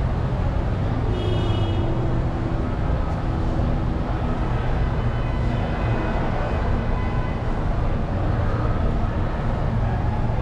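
Busy downtown street ambience: steady traffic noise from passing vehicles, with brief high pitched sounds over it about a second in and again midway.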